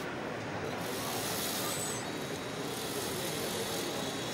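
Large-scale RC model Deutz AgroPrima 4.56 tractor running steadily while working its Stoll front loader bucket.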